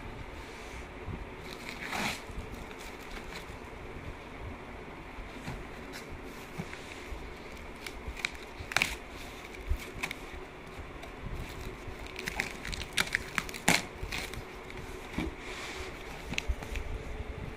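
Clear packing tape being peeled and torn off a cardboard box, with cardboard flaps scraping and crinkling as they are pulled open. Irregular rustling broken by sharp rips, the loudest about two, nine and fourteen seconds in.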